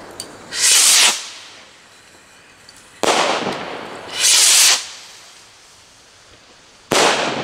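Firework rockets launched one after another from an automatic interval rocket stand. Twice, a short hissing whoosh of a launch is followed a few seconds later by a sharp bang from the rocket bursting overhead, each bang trailing off in an echo.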